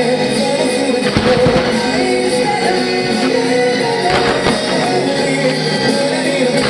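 A song with a singing voice and instruments.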